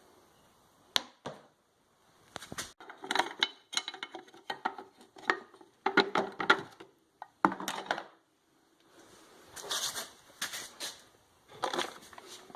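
Small parts and their packaging being handled: irregular clicks, clinks and rustling in short clusters, with brief pauses between them.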